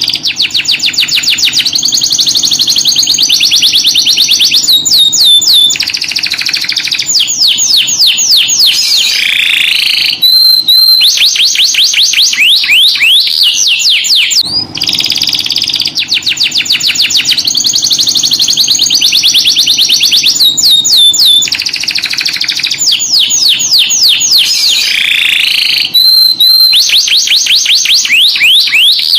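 Domestic canary singing a long, loud song of fast trills and rolls, mixed with sweeping and held whistled notes. The same run of phrases starts over about halfway through, as a looped recording.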